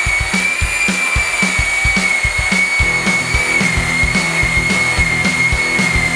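Electric power tool motors whining steadily at a high pitch while stripping paint: an EOF 100 surface milling machine and a random orbital sander. Background music with a steady drum beat plays over it.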